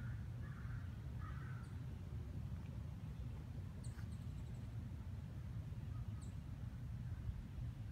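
Outdoor park ambience under a steady low rumble. A couple of short harsh bird calls come in the first second and a half, and a few brief high bird chirps follow later.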